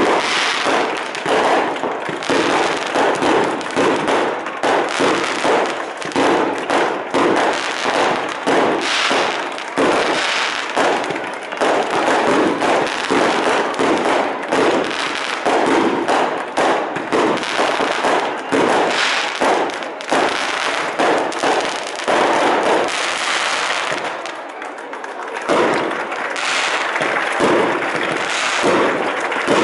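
Fireworks and firecrackers going off in a rapid, continuous string of bangs, with a brief lull about three quarters of the way through.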